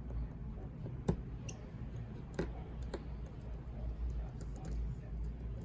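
A few light, sharp clicks of small metal repair tools against a smartphone's internal parts and screws during disassembly, over a low steady hum.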